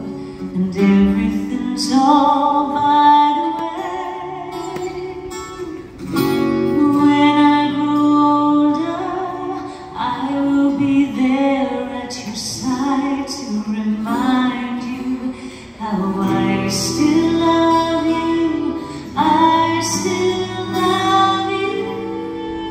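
Live band music: a voice singing phrases with long held notes over strummed acoustic guitar.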